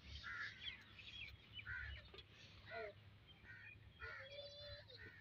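Crows cawing, faint, several short caws about a second apart.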